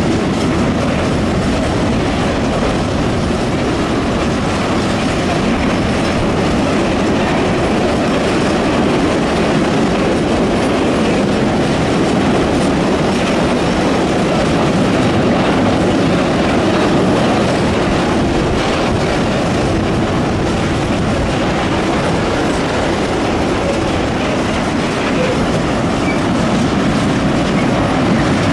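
Freight train's wagons rolling past, their steel wheels running over the track in a loud, steady rumble.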